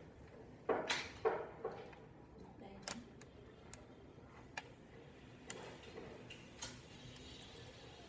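Small magnetic balls clicking as they snap together and are set down on a wooden desk: a cluster of louder clicks about a second in, then single sharp clicks every second or so.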